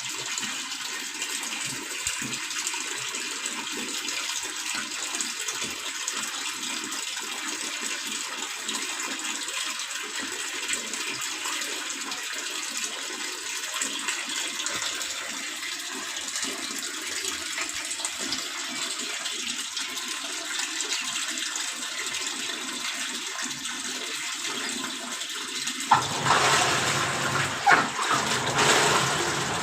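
Water pouring into a washing machine's tub, a steady hiss that turns louder and fuller about 26 seconds in.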